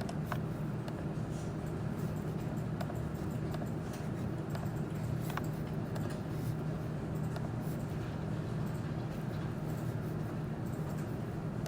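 A steady low hum with a handful of isolated light clicks spread out, a few seconds apart.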